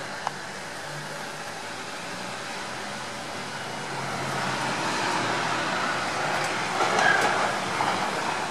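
Steady outdoor rushing noise that swells from about four seconds in and is loudest around seven seconds. A single sharp click comes just after the start.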